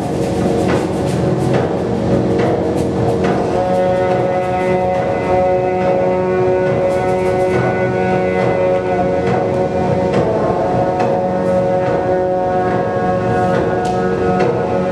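Background music of long held chords, with light percussive hits through it.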